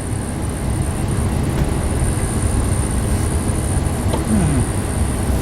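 Steady low rumble of a vehicle driving, heard from inside the cab: engine and road noise.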